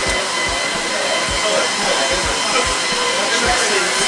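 Steady loud rush of air with a faint high whine, broken by irregular low thumps.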